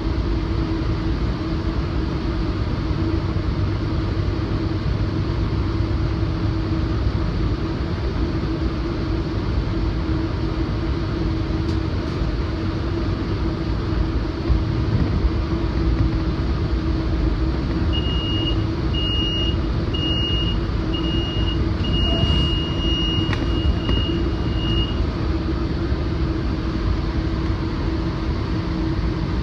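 A commuter train running at speed behind a BNSF GE AC4400CW diesel locomotive, heard from inside the Rotem cab car: a steady rumble with a constant low hum. About two-thirds of the way through, the cab's alerter sounds for several seconds, a run of short high beeps with one longer tone among them.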